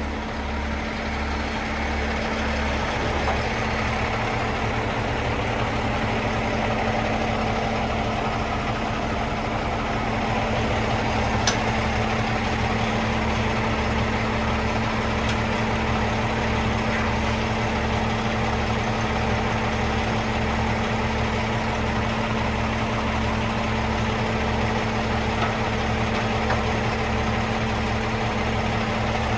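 Heavy machinery running steadily: a constant hum over a deep throb that pulses evenly, a little under once a second.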